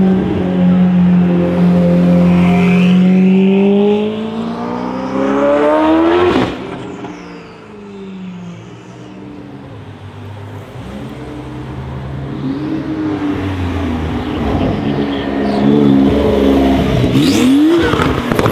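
Ferrari 488 Pista's twin-turbo V8 through a Novitec exhaust, accelerating out of a hairpin. Its note holds steady, then climbs as the revs rise, and cuts off about six seconds in. After a stretch of quieter traffic, another car's engine revs up sharply near the end.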